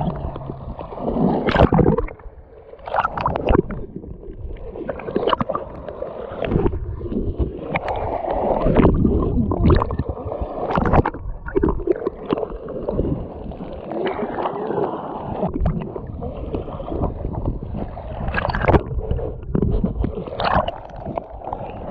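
Water sloshing and gurgling around the camera, with irregular splashes and knocks.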